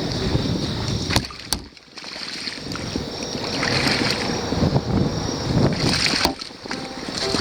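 A steady chorus of autumn insects chirping high over a low rushing noise of water and wind, with a few sharp clicks about a second in and again near the end.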